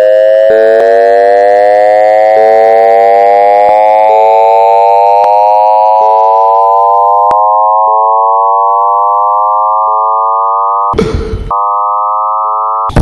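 Civil-defence siren wailing, one loud tone with many overtones rising slowly and steadily in pitch. A short burst of noise cuts in about eleven seconds in.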